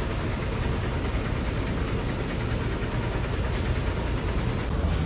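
Steady low rumble and hiss of a moving vehicle.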